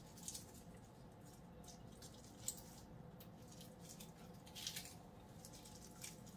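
Faint crackles and squishes of oil-soaked roasted garlic skins being pulled off the cloves by hand, with a sharper click about two and a half seconds in, over a faint steady hum.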